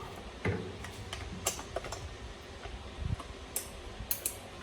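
Scattered small clicks and taps of hand tools and small metal parts being handled while unbolting an RC truck.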